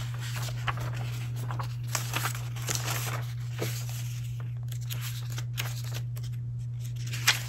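Pages of a thick softcover solutions manual being turned and riffled by hand, paper rustling in a string of quick swishes, with one sharper tap near the end. A steady low hum runs underneath.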